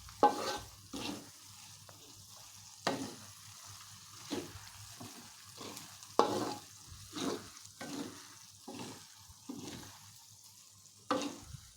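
Spice paste frying in a pan with a faint steady sizzle, stirred with scraping strokes of a spatula, irregularly, about once a second. The paste is nearly done.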